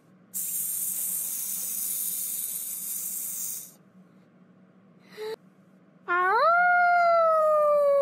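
A long hiss lasting about three seconds, then a short blip, then a loud wolf howl that swoops up, holds and slowly falls away near the end.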